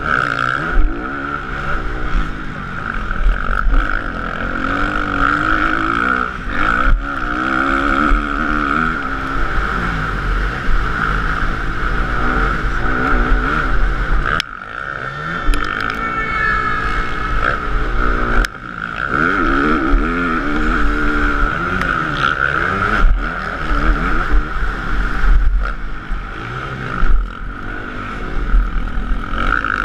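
Motocross bike engine heard from an onboard camera, revving up and falling back again and again as the rider accelerates and shifts on a dirt track, with rushing wind noise. About halfway through the engine note drops away suddenly as the bike goes over a jump, and a few seconds later a sharp knock marks the landing before the revving picks up again.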